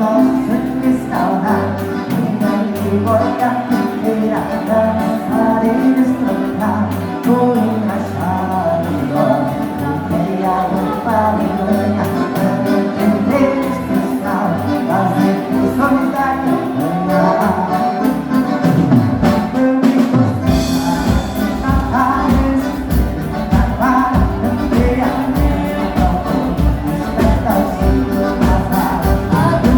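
Live dance music with singing. About two-thirds of the way through, a steady, fast low beat comes in under the melody.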